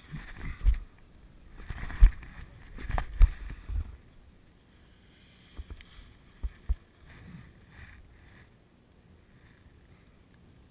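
Rough rumble and scraping of movement over snow, picked up by a body-worn action camera, with heavy thumps for the first four seconds. Then come a few sharp knocks and a much quieter stretch.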